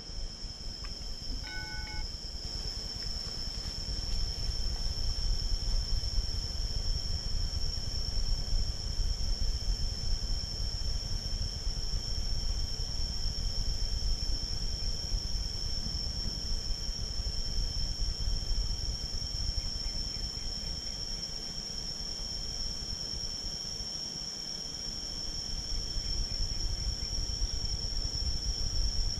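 Outdoor ambience of a steady, high-pitched insect drone held throughout over an uneven low rumble, with a brief pitched chirp about a second and a half in.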